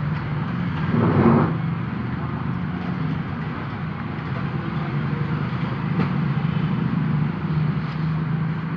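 A steady low hum with background noise, and a brief louder rush about a second in.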